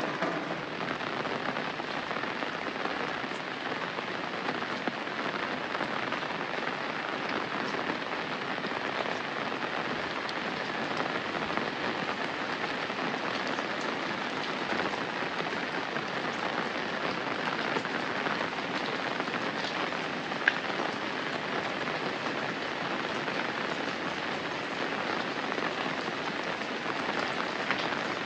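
Steady rain falling, an even hiss of drops on surfaces, with one sharp tick about two-thirds of the way through.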